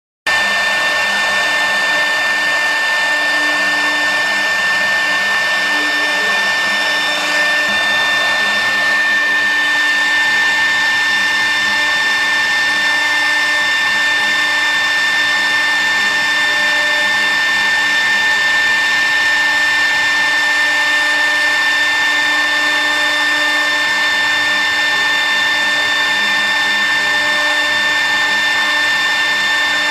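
Spindle motor of a mini cylinder CNC wood-engraving router running, a steady high whine over a hiss. The lower hum changes about seven seconds in.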